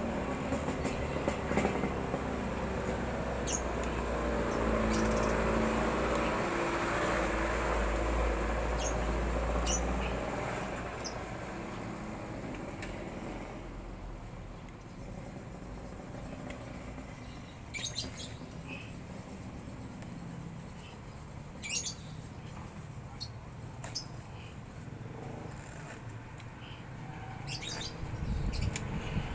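A steady low engine rumble that fades away about ten seconds in, then a quieter background with a few short, high chirps.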